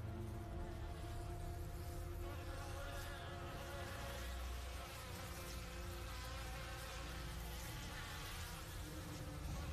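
A swarm of flies buzzing, thickening and growing denser from about two seconds in.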